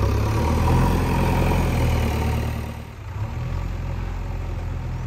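Diesel engine of a backhoe loader or tractor running steadily, louder at first and dropping to a lower level about three seconds in.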